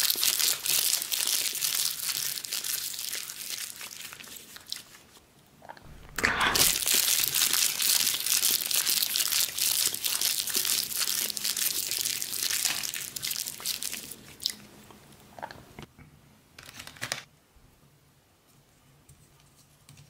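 Close-miked crinkling and rustling of a thin crinkly sheet as hands handle and peel it back, dense at first and dying away, then a second loud burst of crinkling about six seconds in that fades out. A few light clicks and taps follow near the end.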